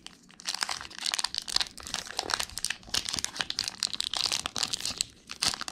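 Foil Pokémon booster pack wrapper crinkling and crackling as it is worked open by hand, a stiff pack that is hard to open. The crackle stops briefly about five seconds in, then starts again.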